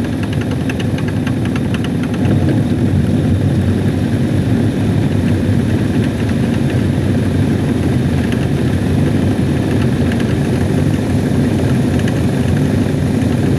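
The drive of a Hitachi SF-160KJS top-loading washing machine running, its belt and pulley under the clutch and gearbox unit turning, with a loud steady hum and light ticking above it. The machine's complaint is a very loud noise during its final spin.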